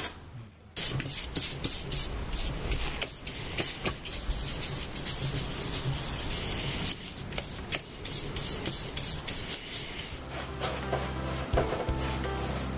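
A painting knife scraping and smearing paint over and over across a metal palette tray, mixing a sky colour.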